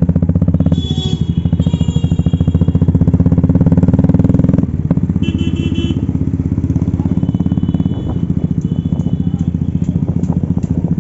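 Motorcycle engine running under the rider, pulling harder as the bike accelerates and then easing off about halfway through. A few short high horn beeps sound in the traffic.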